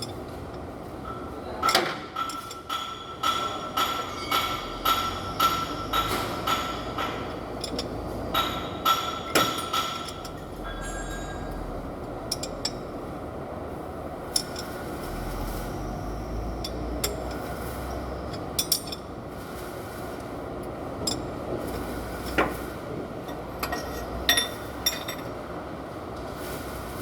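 Metal tool striking metal engine parts during cylinder head work: a run of ringing clinks, about two a second for the first ten seconds, then occasional single clicks.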